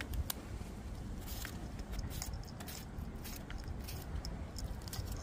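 A knife slicing rounds off a cucumber held in the hand, with short crisp cuts at irregular intervals over a steady low rumble.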